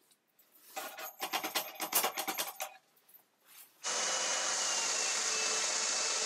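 A quick run of rough scraping strokes lasting about two seconds. About four seconds in, a belt sander clamped upside down in a vise comes in suddenly, running with a steady loud hiss and a faint thin whine as a rough cast aluminum vise jaw is held against the belt.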